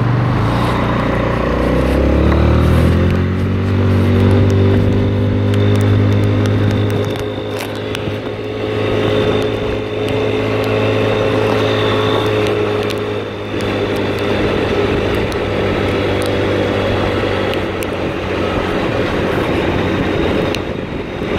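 Motor scooter engine heard from the rider's seat, pulling away with its pitch rising over the first few seconds, then holding steady at cruising speed, with road and wind noise underneath. The engine note eases after about thirteen seconds.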